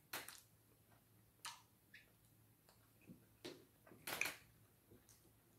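Close-up eating sounds: short smacks and slurps from eating slimy okra soup and fufu by hand, coming every second or so at irregular intervals. The loudest slurp is about four seconds in.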